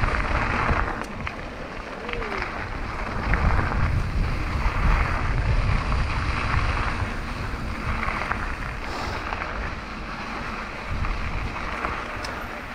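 Mountain bike rolling along a dirt trail: tyre noise on the packed dirt and gravel, with a few light knocks from the bike, under heavy wind buffeting on the microphone.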